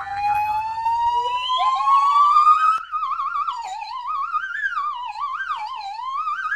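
Warbling theremin-like electronic tone: it glides slowly upward for about three seconds, then wavers up and down with a quick wobble.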